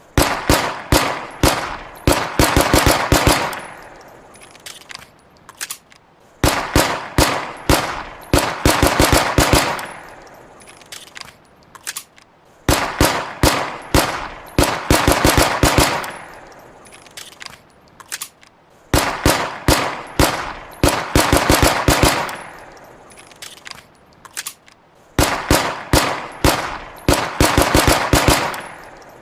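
Walther PPK pistol sound effect: quick strings of gunshots, each string lasting about three seconds and fading in a ringing tail. The string repeats about every six seconds, five times in all, with a few fainter clicks between.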